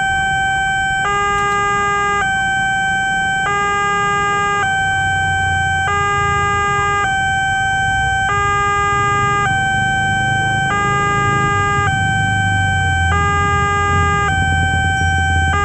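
Railway level-crossing warning alarm from the loudspeaker on the signal pole: an electronic two-tone signal that switches between a lower and a higher chord about every 1.2 seconds, sounding while the flashing lights warn of an approaching train. A low rumble runs beneath it and grows louder in the second half.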